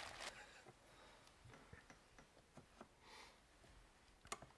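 Near silence with a few faint scattered clicks as Siemens Deka fuel injectors are handled and pushed into a fuel rail, with one sharper click about four seconds in.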